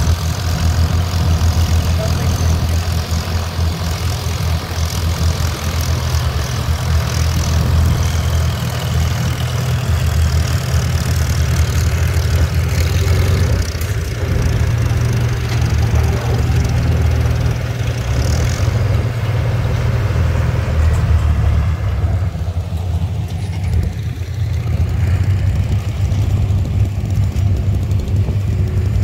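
Antique farm tractor engine running steadily under load, most likely pulling the weight sled. It is a deep, steady drone, and the higher-pitched noise thins out about three-quarters of the way through.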